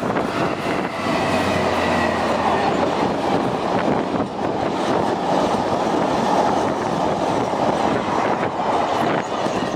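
Class 66 diesel locomotive hauling a ballast train past at close range: the engine's low tone is heard from about a second in, then the wagons roll past with steady wheel-on-rail noise.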